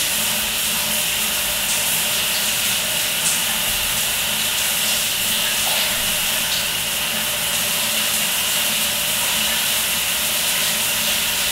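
Shower running: a steady hiss of water spraying onto a person and the tiled stall floor.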